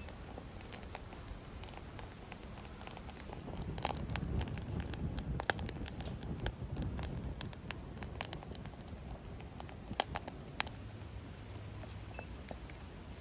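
Sticks burning in a small stainless steel wood stove: the fire crackles and pops with many sharp snaps, thickest through the middle, over a steady low rumble of the flames.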